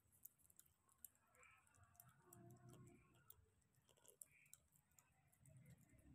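Faint, irregular wet clicking and smacking of a month-old kitten chewing and lapping wet food.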